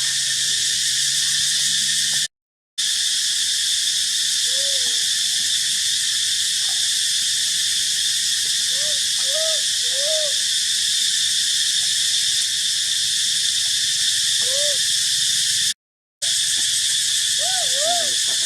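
A steady, high-pitched insect chorus, with soft, short rising-and-falling calls from an animal heard over it, a few in quick succession around the middle and again near the end. The sound cuts out twice for a moment.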